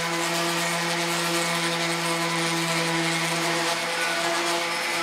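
DeWalt random orbit sander running steadily on the wooden back support: a constant motor hum under the hiss of the sanding pad on the wood.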